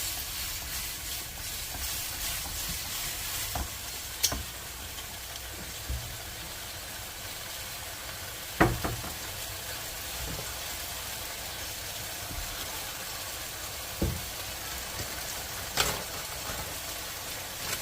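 Zucchini sizzling as it is stir-fried in a pan, with several sharp utensil knocks against the pan, the loudest about halfway through.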